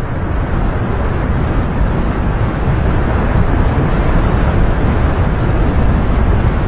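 Steady rushing noise, heaviest at the low end, that grows slightly louder over the first second and then holds.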